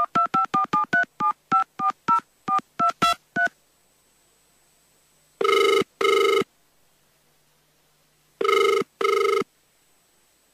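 Telephone keypad dialling a number: a quick run of about fifteen short two-tone DTMF beeps, followed by the ringback tone of the outgoing call, ringing twice as double rings about three seconds apart.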